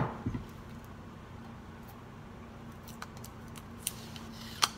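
Faint scratching and small clicks of a fingernail picking a price sticker off a new mug, the sharpest click near the end, over a steady low hum.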